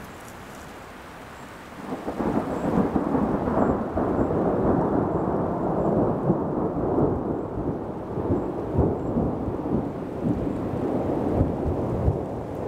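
Thunder rumbling. It starts suddenly about two seconds in and rolls on without a break, loud and uneven.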